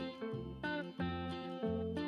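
Background music: an acoustic guitar picking an old-time tune, with a low bass note about twice a second under higher plucked notes.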